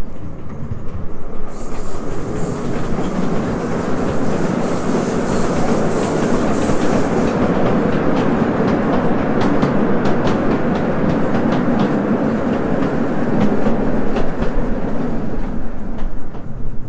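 Miniature train rolling along its track with a steady rumble and sharp rail clicks, running through a small wooden shed. A high hiss sits over it for the first few seconds.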